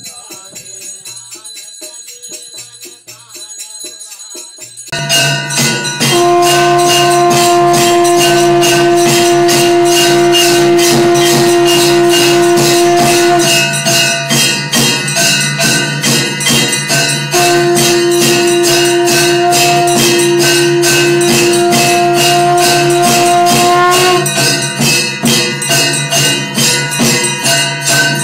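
Conch shell blown in two long, steady, single-pitched blasts of several seconds each, the second rising slightly as it ends. Underneath, loud rapid ringing and clanging of bells and percussion starts suddenly about five seconds in and keeps a fast even beat.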